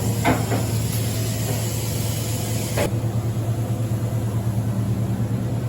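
Steady low electrical and mechanical hum from a powered-up OKK MDV55 CNC vertical machining center standing idle. A high hiss in the background cuts off suddenly about three seconds in.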